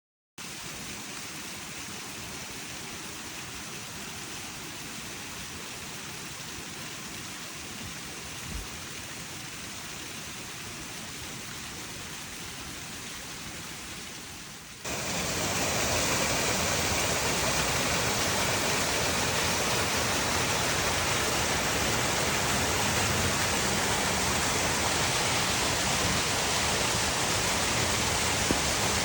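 Waterfall rushing steadily with a heavy spring snow-melt flow. About halfway through the sound jumps abruptly louder and brighter, and there is a faint knock a few seconds before that.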